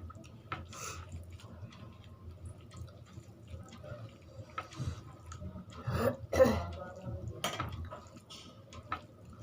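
Close-miked eating sounds: wet chewing and lip smacks with small clicks, and a louder burst of mouth noise about six seconds in.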